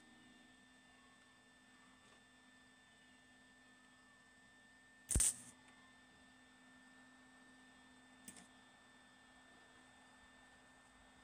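Stick welder with a faint steady hum, broken about five seconds in by one short, loud crackle of the electrode striking an arc on the steel bit, and a smaller crackle near eight seconds.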